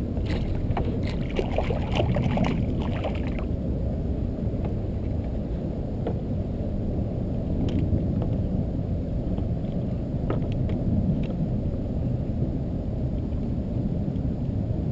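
Steady low rumble of wind buffeting the camera microphone on a kayak, with a patch of light clicks and rustles from handling the fishing line in the first few seconds.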